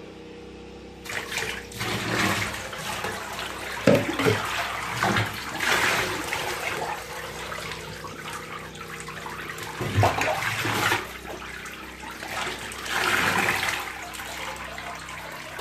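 Running water splashing in a bath as a dog is washed, the flow swelling and easing in surges, with a couple of brief knocks.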